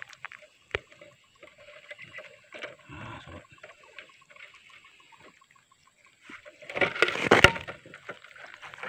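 Wet rustling and light clicks of a wire-mesh fish trap being handled with a catch of lembat fish inside. About seven seconds in there is a louder burst of rattling and splashing, topped by a sharp knock.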